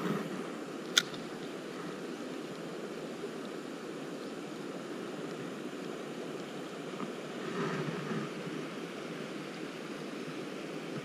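Steady rushing of a shallow river's current. About a second in, one sharp click, the spinning reel's bail snapping shut after the cast.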